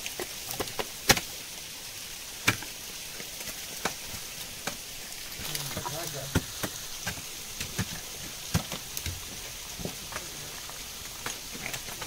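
Irregular sharp ticks and knocks of ice on a frozen waterfall over a steady hiss, the loudest about a second in, with a faint voice about halfway through.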